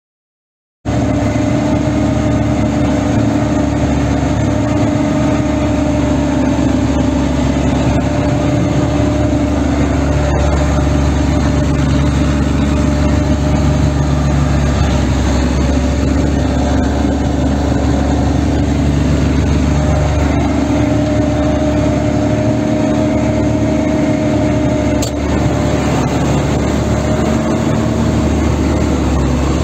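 ZTS 16245 tractor's diesel engine running steadily under load while driving a rear-mounted Huki 265 snow blower, heard from inside the cab. The sound cuts in about a second in.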